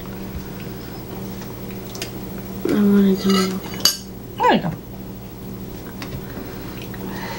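Table knives and forks clinking and scraping on plates as cream cheese is spread on croissants, over a steady faint hum. About three seconds in there is a short hummed vocal sound, and a second later a quick voice sliding down in pitch.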